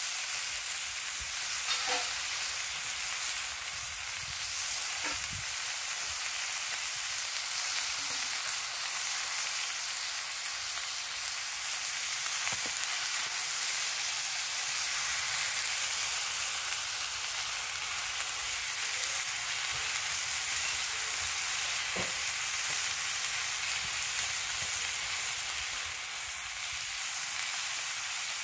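Burger patties frying in a Trangia camp-stove frying pan: a steady sizzle, with an occasional faint click.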